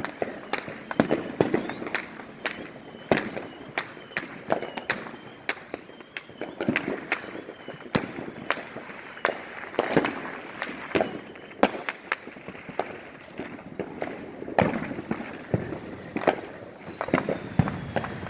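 Fireworks and firecrackers going off all around, a steady run of irregular sharp bangs and pops, sometimes several a second. A thin, falling whistle sounds over them in the last few seconds.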